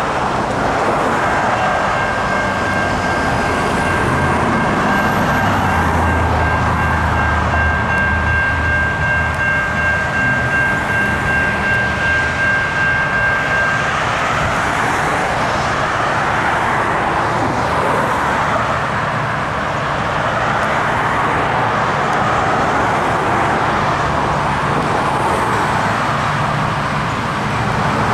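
Freight train approaching from a distance: low locomotive rumble and rail noise over a constant background hum, with a steady high tone held for the first half that stops about halfway through.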